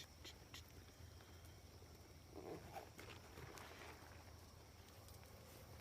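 Near silence: faint outdoor room tone with a few light ticks at the start and a brief faint murmur about two and a half seconds in.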